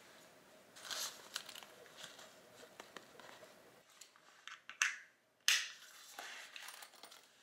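Rustling fabric and small clicks as a black fabric waist bag is handled and put on, with two sharp clicks about halfway through as its plastic side-release buckle is fastened.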